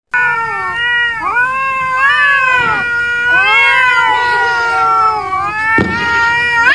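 Domestic cat yowling in one long, wavering caterwaul that rises and falls in pitch almost without a break, with a short rasp near the end. It is the warning yowl of a cat in a standoff with another cat.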